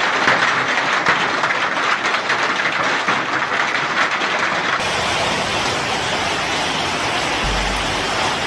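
Heavy hail falling: a dense, crackling patter of hailstones striking the ground. About five seconds in it changes to a steadier hiss of hail and rain.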